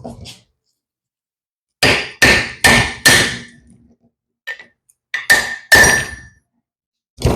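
Hammer blows on a seal installer, driving a grease seal into the back of a Ford Granada disc brake rotor. Four quick strikes, then two more, and one near the end, each with a short metallic ring.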